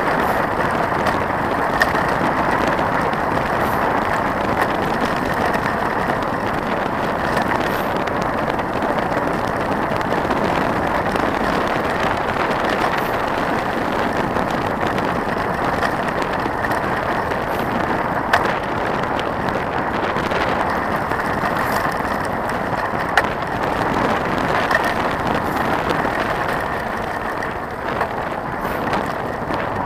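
Trek 4900 mountain bike rolling along a gravel road: a steady rushing, crunching noise of the tyres on gravel and air moving past the camera, with a few sharp knocks as the bike jolts over stones.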